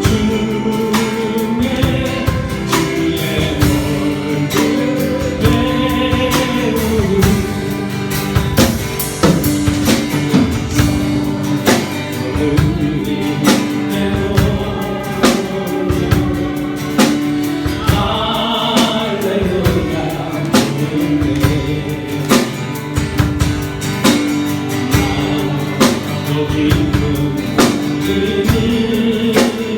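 Church praise music: a hymn sung by a group of voices over a band, with a steady drum beat.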